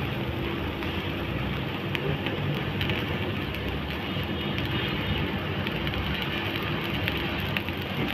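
Pan of soup stock heating on a gas burner: a steady rushing noise with a few faint clicks.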